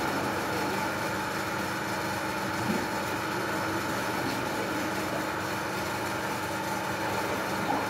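Steady hum of running machinery, with several held tones and no change in level.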